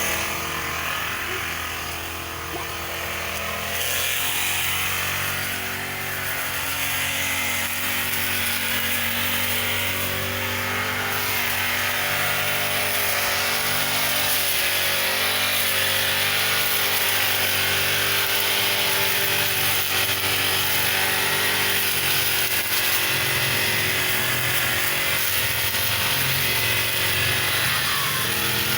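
Brush cutter engine running steadily at working speed while cutting grass.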